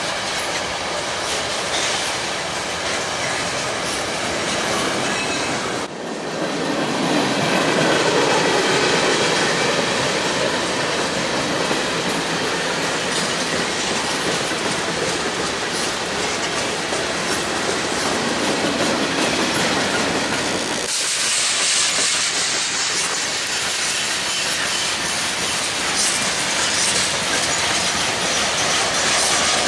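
Freight cars of a CN manifest train rolling past, wheels clacking over the rail joints. The sound changes abruptly about six seconds in and again about twenty-one seconds in, as the recording cuts.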